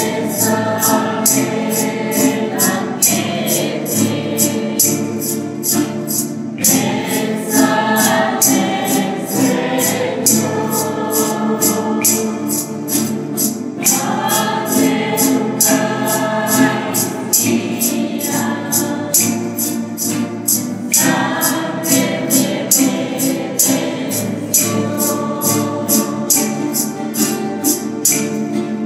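Church choir singing a hymn over a steady percussion beat of about three strikes a second. It is sung during communion, before the prayer after communion.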